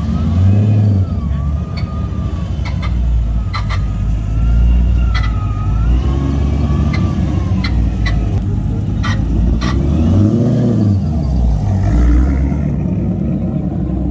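A car engine running loud and being revved, swelling about half a second in and again around ten seconds in, with several short sharp cracks over it.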